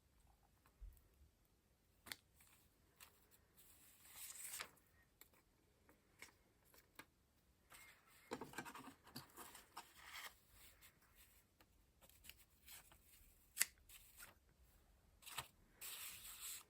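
Quiet paper handling: paper rustling and sliding, with scattered small taps and clicks. Longer rustles come about four seconds in, around eight to ten seconds, and near the end.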